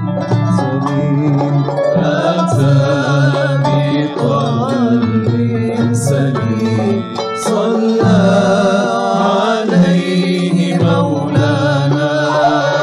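Live Andalusi-style sacred music: a voice sings an ornamented, wavering melody over plucked strings and sustained low bass notes.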